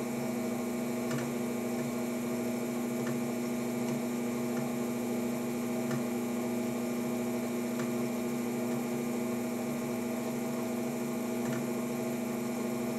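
Electric potter's wheel motor running with a steady hum, with a few faint ticks now and then.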